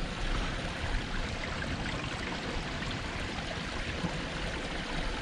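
Small stream of clear water flowing, a steady, even rush of running water.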